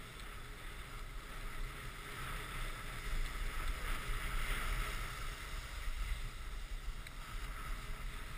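A snowboard sliding and scraping over groomed, tracked snow, a steady hiss that swells about halfway through, with wind rumbling on the microphone.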